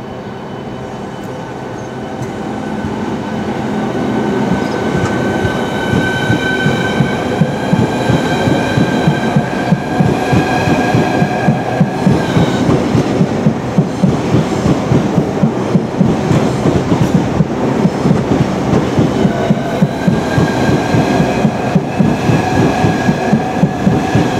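Two coupled Hitachi Class 395 Javelin electric multiple units accelerating away and passing close by. The traction motors whine in tones that rise in pitch, drop away a little after halfway, then rise again. Under them runs a steady clickety-clack of wheels over the rail joints, growing louder over the first few seconds.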